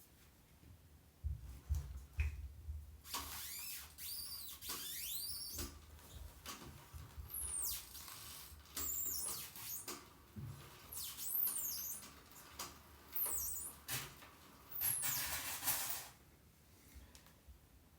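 A bike's drivetrain hissing and squealing as the pedals are turned, in repeated bouts of high, sweeping squeaks that rise and fall in pitch, stopping about three seconds before the end.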